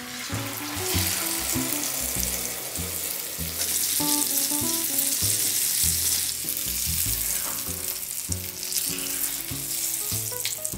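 Minced pork and beaten egg sizzling in hot oil in a frying pan, the sizzle rising about a second in as the egg goes into the pan and then frying steadily.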